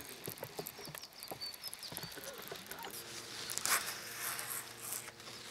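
Faint clicks and ticks of a fishing reel being wound and the tackle handled, with a faint steady hum coming in about three seconds in.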